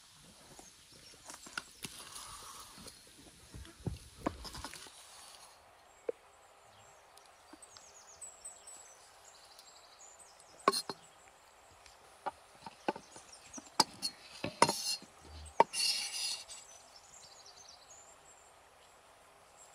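A large cleaver-style knife cutting cheese griller sausages on a round wooden board: scattered sharp knocks of the blade striking the wood, bunched more densely in the second half, with a few brief scrapes.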